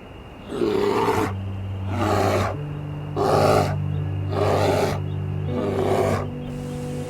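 A large wild animal calling five times, each call short and loud and about a second or so apart, over a steady low hum.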